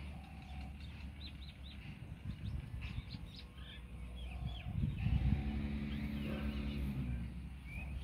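Small birds chirping in short, high notes over a steady low rumble. About five seconds in, a low droning sound holds one pitch for about two seconds, then fades.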